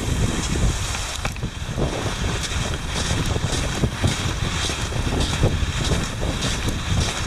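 Wind noise on the microphone over the hiss of cross-country skis gliding on groomed snow, with scattered light clicks and scrapes.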